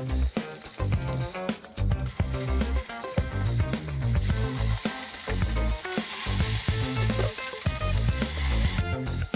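Butter sizzling and frying in a pan as spoonfuls of cottage-cheese batter for syrniki are dropped in and fry. The sizzle stops abruptly near the end, and background music runs underneath.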